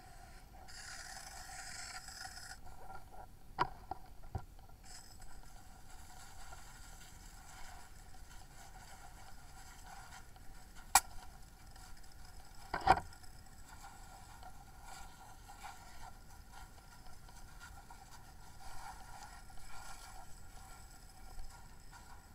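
Fire hose stream spraying water onto a burning car: a steady hiss and hum, broken by a few sharp pops, the two loudest about halfway through.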